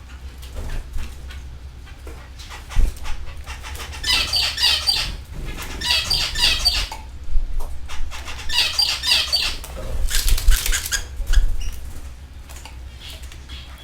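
Canaries chirping in bursts of rapid, repeated high trills, three runs between about four and ten seconds in, followed by a short rustling burst.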